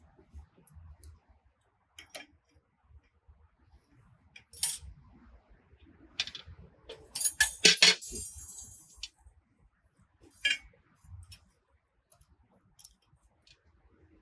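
Metal parts clinking and clattering as the log splitter's control handles are picked up and fitted: a few separate clinks, with the loudest clatter about seven to eight seconds in, briefly ringing.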